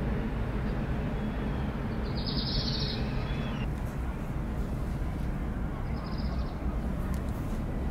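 Steady low outdoor rumble of harbour ambience, with a bird calling briefly about two seconds in and again around six seconds.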